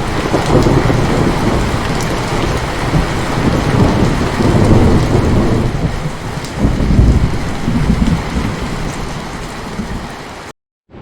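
Heavy rain pouring steadily, with rolling thunder rumbling underneath in several long swells. Near the end the sound cuts out abruptly for a moment, then lighter rain comes back.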